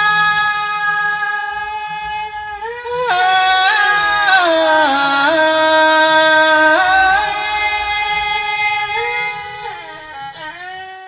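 A woman singing Tai Dam khap, holding long drawn-out notes with slides and bends in pitch between them, fading away near the end.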